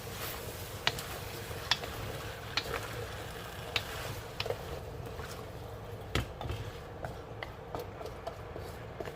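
Kabocha squash sautéing in a pan with a steady sizzle, a spatula stirring and knocking against the pan about once a second.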